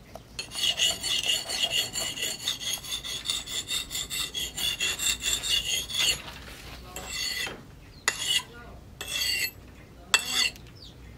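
Steel double-bit axe blade being honed on a wet whetstone: quick, even rasping strokes about three a second, then slower single strokes with pauses over the last few seconds.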